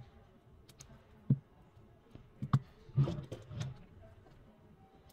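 A smartphone being handled and set down on a silicone repair mat: a few sharp clicks and knocks, then a short spell of knocking and rustling about three seconds in.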